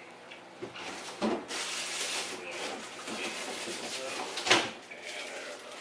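Household handling noise from someone rummaging in an open refrigerator: rustling, with two knocks about a second in and, louder, near the end.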